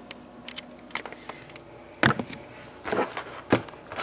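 A few light clicks, then three sharp, louder knocks about two, three and three and a half seconds in, with a brief scuffle of handling noise around the middle knock.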